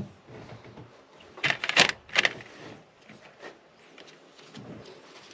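Open-ended spanner clicking on the brake pipe union nuts of a new brake master cylinder as the lines are tightened: a quick run of sharp metallic clicks about one and a half seconds in, with lighter scattered clicks around it.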